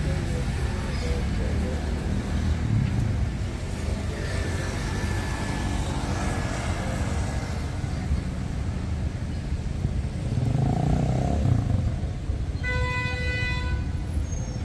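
Street traffic noise with vehicles passing, and a car horn sounding one steady note for about two seconds near the end.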